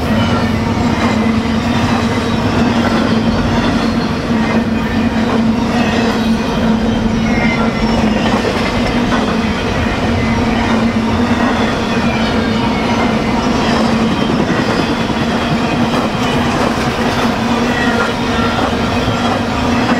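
BNSF freight train rolling past at close range: a steady, loud rumble of steel wheels on the rails, with brief faint wheel squeals here and there.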